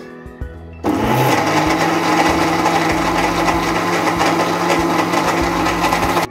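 Electric blender running on a jug of strawberry milkshake. The motor starts about a second in with a quick rise in pitch, runs steadily and loudly, then cuts off at the end.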